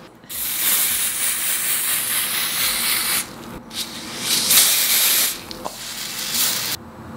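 Aerosol can of Ebin Wonder Lace Bond adhesive spray hissing in bursts: one long spray of about three seconds, then a short spurt and two more sprays, as the wig glue is sprayed along the hairline.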